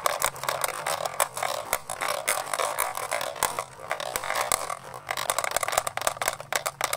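Glass marbles rolling and clattering down a clear plastic wavy track, with many quick clicks as they knock against each other and the track walls. The clatter thins for a moment after about four seconds, then picks up again.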